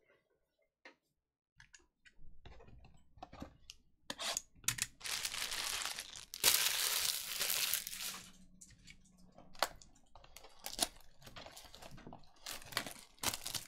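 Plastic shrink wrap being torn and crinkled off a trading-card hobby box, along with clicks and rustles of the cardboard box being handled. The tearing is loudest from the middle of the stretch.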